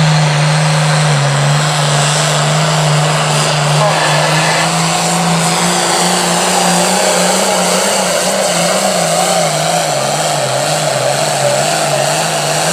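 Pro farm class pulling tractor's diesel engine at full throttle under heavy load, dragging the pulling sled down the track. The steady engine note wavers up and down in pitch through the second half of the pull.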